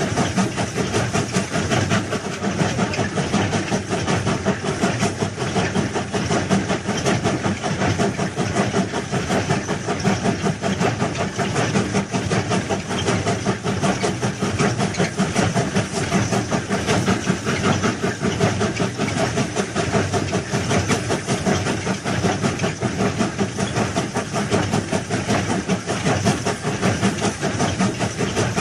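Railway track-laying machine working: a steady, dense mechanical clatter with a hiss.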